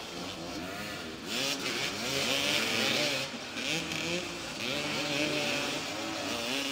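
Several motoball motorcycles' engines revving up and down over one another as the riders jostle for the ball, with a steady high hiss over them.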